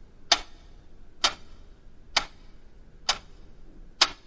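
A clock ticking, one sharp tick a little under every second, five ticks in all, over a faint low hum.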